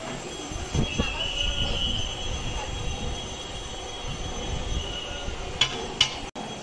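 Long metal ladle scraping through khichuri in a large iron kadai, a metal-on-metal squeal, over a steady low rumble. Two sharp clinks come near the end.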